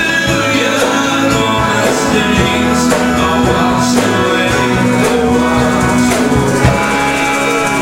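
Live worship band playing, with voices singing over guitars.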